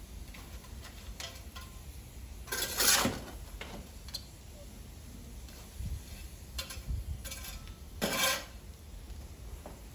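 Iron fire shovel scraping up embers from a wood fire and tipping them out under an iron gridiron: a run of short scrapes and clinks, the loudest about three seconds in and another just after eight seconds.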